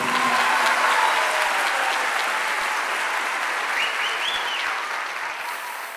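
Theatre audience applauding, the clapping slowly dying down.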